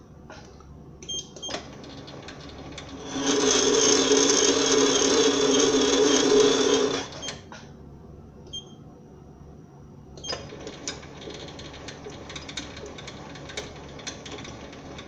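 SIEG SC4 bench lathe running during a screw-cutting pass on a brass rod. A few clicks come first. Then a loud steady whine with several tones lasts about four seconds, and after a lull comes a quieter rattle of many small ticks.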